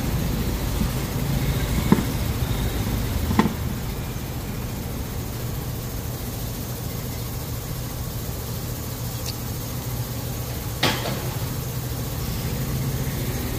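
An engine running steadily with a low hum, with three sharp knocks: about two seconds in, at three and a half seconds, and near eleven seconds.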